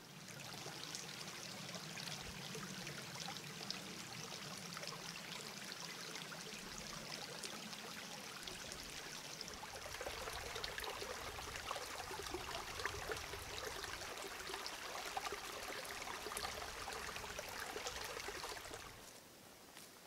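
Small forest brook running over stones, a steady trickling rush of water. It changes in character about halfway through and stops shortly before the end.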